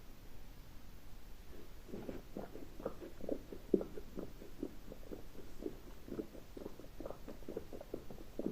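Human stomach gurgling and growling. After a quieter first couple of seconds comes a long run of short, bubbly gurgles, about three a second.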